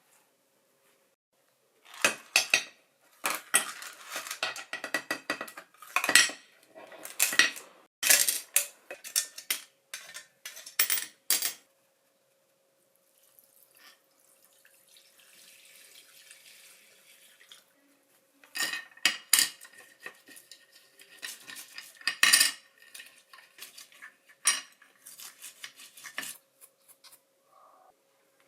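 Small metal parts and hand tools clinking and rattling in quick clusters during work on a cordless drill, with a stretch of soft hiss in the middle.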